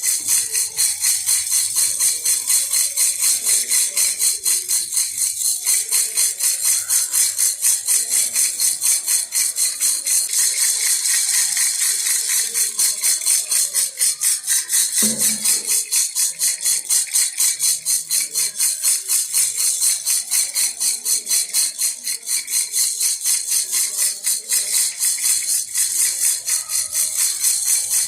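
Baby rattle (jhunjhuna) shaken steadily and rhythmically, about five shakes a second, its beads giving a bright, jingling rattle. A single short low knock about fifteen seconds in.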